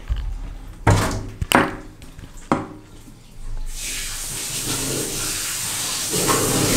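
A few sharp knocks, then a water tap starts running about four seconds in: a steady splashing hiss that gets louder near the end.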